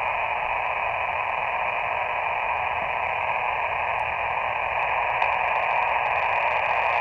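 Steady hiss of band noise from an Elecraft KX2 HF ham transceiver's receiver, with no station coming through: the operator is listening for a calling station to come back. The hiss gets slightly louder about five seconds in.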